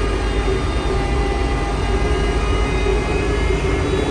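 Cabin of a UTTZ Gorozhanin trolleybus driving on battery power with its poles down: steady low road rumble from the moving bus, with a steady hum and faint high tones over it.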